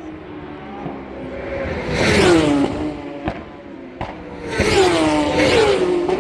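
Road-racing motorcycles flat out past the roadside, twice: one about two seconds in and another, longer, around four and a half seconds in, the engine note dropping in pitch as each goes by.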